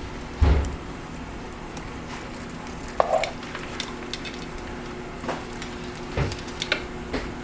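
Handling noise from the rubber head-harness straps and buckles of an M40 gas mask being worked loose by hand: scattered small clicks and crackles, with light knocks about half a second in, at about three seconds and near six seconds.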